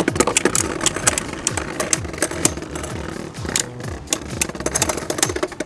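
Two Beyblade Burst spinning tops whirring and clashing in a plastic stadium. Rapid, irregular sharp clicks and knocks sound as they hit each other and the stadium walls, over a low spinning hum.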